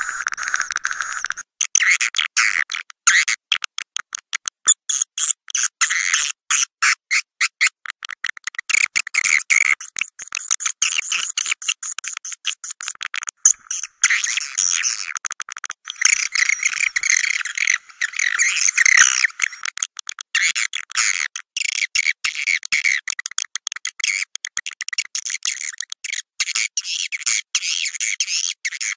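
Recorded swiftlet calls: dense, rapid twittering and chirping, chopped into quick stuttering pulses many times a second. This is a lure call played to draw swiftlets in to roost and nest in a swiftlet house.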